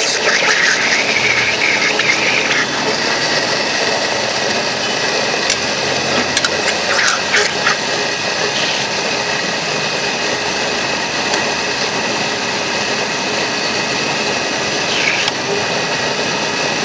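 Electric blender with a glass jar running steadily, churning a pale liquid drink mix, with a few brief clicks about six to seven seconds in.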